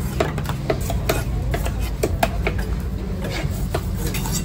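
Knife chopping into fish on a cutting block: a run of sharp, irregular strikes about two to three a second, over a steady low rumble of market background.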